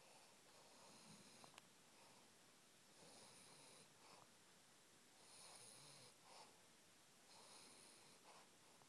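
French bulldog puppy snoring faintly in its sleep: soft, wheezy breaths about every two seconds, each ending in a short click.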